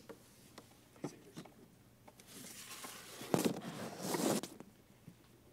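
Certificate folder and items being handled at a lectern close to a handheld microphone: a few light clicks, then about two seconds of rustling with a couple of louder scrapes.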